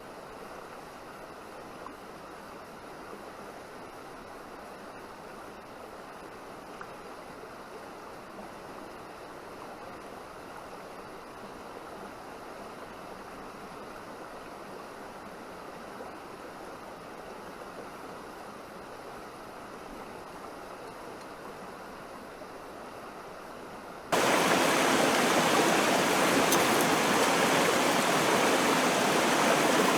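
River water flowing over stones, a steady rushing. About 24 seconds in it suddenly becomes much louder and brighter.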